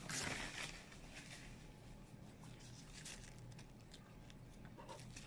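Faint chewing and mouth sounds of someone eating a taco, with a short noisy rustle right at the start.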